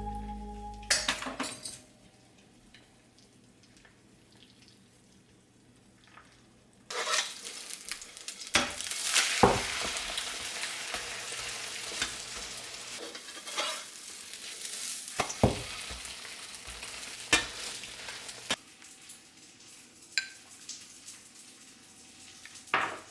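Food frying in a hot pan: a loud sizzle starts about seven seconds in, with several sharp clinks and scrapes of a utensil against the pan, then drops to a softer sizzle for the last few seconds.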